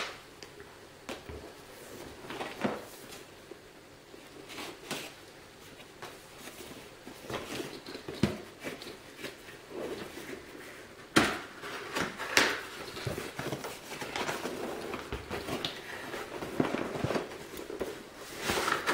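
A cardboard graphics-card box being handled and opened: its printed outer sleeve scraping as it slides off the plain inner box, with scattered taps and knocks. A sharper knock comes about eleven seconds in, and longer sliding scrapes near the end.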